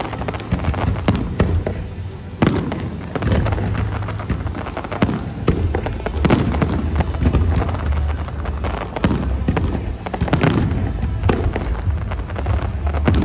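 Fireworks going off in a rapid, irregular string of bangs and crackles over a continuous deep rumble.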